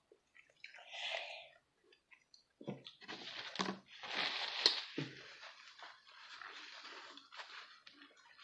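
Chewing and crunching of a McDonald's hash brown, then a paper napkin rustling and rubbing for several seconds from about three seconds in.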